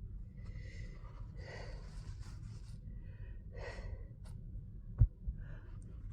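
A person's soft, gasping breaths during a sneezing fit, with one sharp click about five seconds in.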